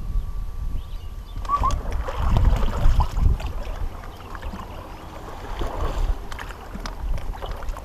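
Wind rumbling on the microphone over water lapping at a small fishing boat, with light clicks and rustles coming in from about a second and a half in.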